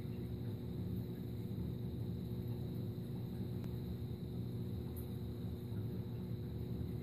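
Saltwater aquarium's pumps and filtration running: a steady low hum and rumble with a faint steady high tone above it.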